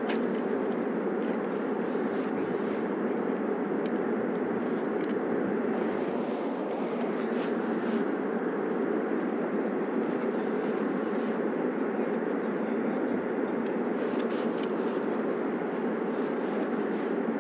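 Fast river current rushing over stones: a steady, even rush of water.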